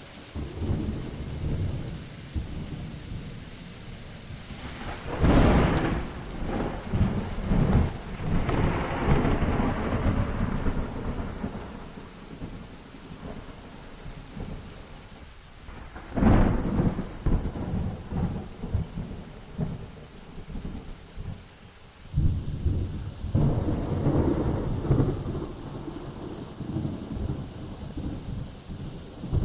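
Thunderstorm: rain falling steadily throughout, with three rolls of thunder. Two start with a sharp crack, about five and sixteen seconds in, each followed by several seconds of deep rumbling. A third swells up more gradually about twenty-two seconds in.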